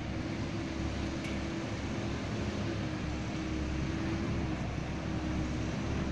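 Loaded dump truck's diesel engine running steadily at low speed as it drives over soft dirt fill, a continuous drone with a low rumble. A brief tick about a second in.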